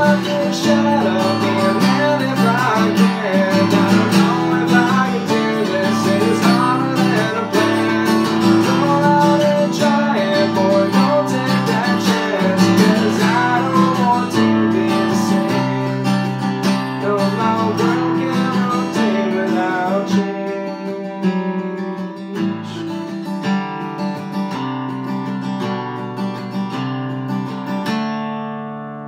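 A man singing over a strummed acoustic guitar. About two-thirds of the way in the voice drops out and the guitar plays on alone, ending on a chord left to ring and fade.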